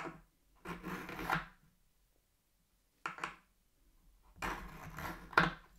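Knife blade drawn through an AnySharp pocket knife sharpener three times, each pull a short metal scrape; the last pull is the longest and the middle one the shortest.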